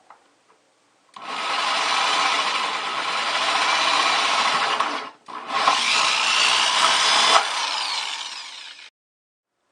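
Power drill boring a large hole through the bucket wall for a PVC outlet pipe. It runs in two long spells with a short pause between, then stops abruptly.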